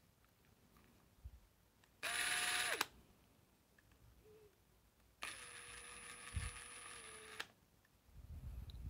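Parkside Performance PDSSAP 20-LI A1 brushless impact driver running with no load, so the hammer does not engage: a short, louder run about two seconds in and a longer, lower-pitched run from about five seconds in, each motor whine dropping in pitch as the trigger is released and the motor winds down. A low rumble follows near the end.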